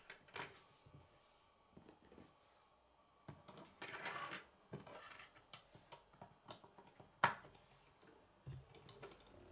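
K'nex plastic pieces being handled and pressed together on a wooden tabletop: scattered small clicks and light scraping, a longer scrape about four seconds in and a sharper, louder click a little after seven seconds.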